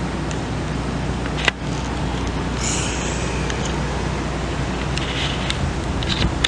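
Steady low rumble of a car driving, engine and road noise, with a sharp click about a second and a half in and a brief hiss near three seconds.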